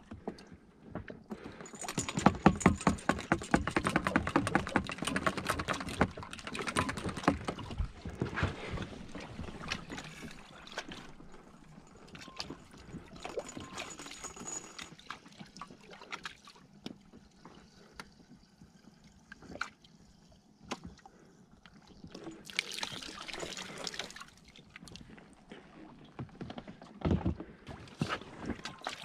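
Jiggle siphon refuelling a Yamaha 2.5 HP outboard: a fast rattle of clicks as the hose is shaken for the first ten seconds or so, then quieter trickling and gurgling of fuel with scattered clicks. A short louder rush of noise comes a little before the end.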